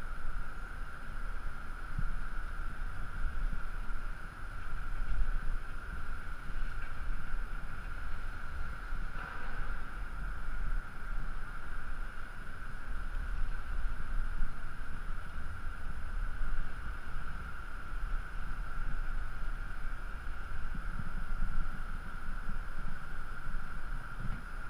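Wind buffeting the microphone of a body-mounted camera, a low rumble that gusts up and down, with a steady high-pitched tone alongside.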